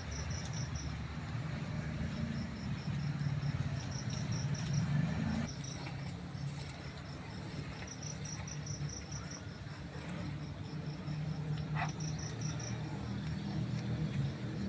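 Insects chirping in quick trains of high-pitched pulses that come and go every second or two, over a low steady rumble.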